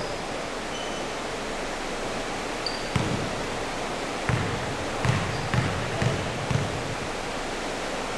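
A basketball bounced about six times on the gym floor at uneven spacing, the free-throw shooter's dribble before the shot, over a steady background hiss. A brief squeak comes just before the first bounce.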